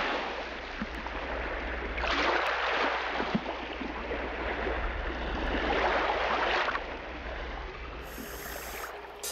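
Rushing water noise, with no steady tone, swelling and easing off, loudest about two seconds in and again about six seconds in.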